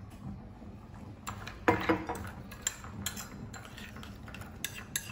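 Metal spoon clinking and scraping against a small ceramic bowl while stirring hot water into crushed chili, garlic and sugar to dissolve the sugar. Irregular sharp clicks and knocks, the loudest with a short ring a little under two seconds in.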